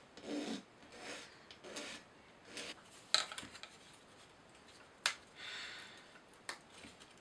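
A small laser-cut plywood part rubbed back and forth on a sanding block, four strokes under a second apart. Then three sharp cracks a second or two apart as wooden parts are pressed out of a plywood sheet.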